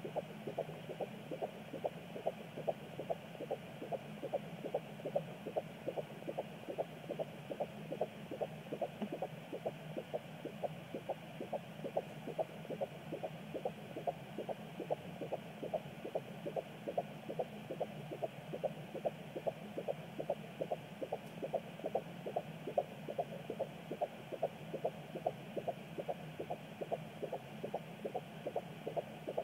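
A 16-week fetus's heartbeat picked up by a handheld pocket fetal doppler and played through its small speaker: a fast, even pulse of a little over two beats a second, 131 to 143 beats a minute, over a steady hum.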